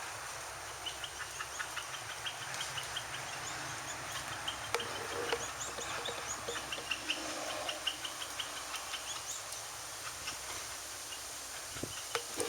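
Small birds chirping in short, scattered notes over a steady outdoor hiss.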